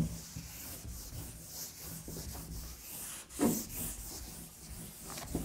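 A cloth wiping chalk off a blackboard in repeated rubbing strokes. There is a sharp knock at the very start and a brief louder sound about three and a half seconds in.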